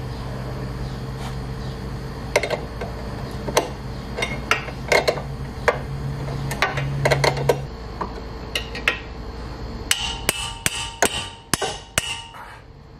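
Hammer blows on steel at a car's front steering knuckle, seating the new lower control arm's ball joint: a string of sharp metallic knocks starting a couple of seconds in, coming quicker and ringing in the last few seconds.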